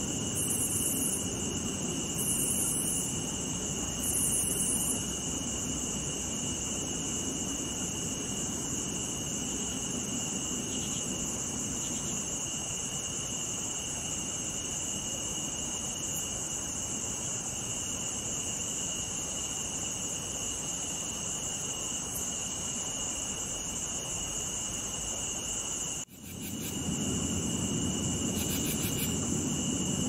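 Insect night chorus of crickets and cicadas: a steady high trilling at two pitches over a soft hiss, with three short, higher buzzes in the first five seconds. The chorus cuts out for an instant about 26 seconds in and comes straight back.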